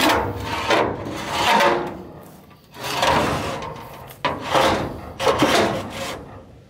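Aluminium loading ramps scraping metal on metal as they are slid back into the stowage slot under a car trailer's deck, in three long drags.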